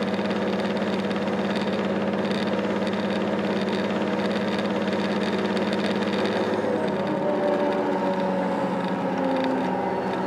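Diesel engine of an SNCF B 81500 (AGC) railcar running with a steady drone, then from about seven seconds in its tones begin to rise in pitch together as the train picks up speed.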